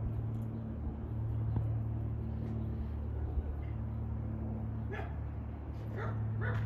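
Steady drone of a Cessna R182 Skylane RG's six-cylinder Lycoming engine and propeller passing high overhead. A dog barks three times near the end.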